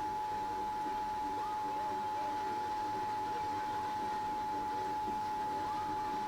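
Emergency Alert System two-tone attention signal: a steady dual tone (853 and 960 Hz) held without a break. It is the alert tone that precedes the spoken message of a radio station's EAS test.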